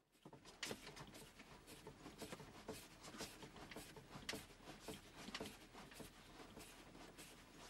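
Faint, irregular light clicks and rustles, several a second, of hands working the operator's console and seat fittings in an excavator cab.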